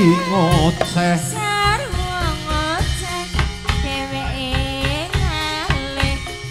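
Live dance music: steady drum strokes under a wavering, sung melody.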